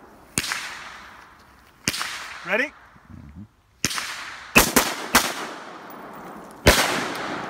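AR-style rifle shots, each sharp crack trailing off in a short echo. There are single shots in the first two seconds. About the middle comes a quick pair followed by a third shot, the two-then-one rhythm of a Mozambique failure drill, and one more shot comes near the end.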